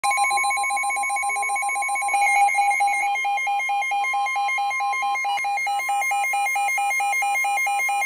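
Midland NOAA weather alert radios sounding a severe thunderstorm warning alarm: rapid electronic beeping, about five beeps a second, over a steady tone that weakens about five seconds in.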